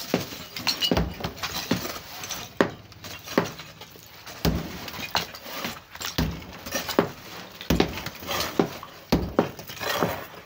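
Sledgehammer blows against a plastered brick wall during demolition, about one strike a second. Chunks of masonry and tile shards clatter down onto the rubble after the strikes.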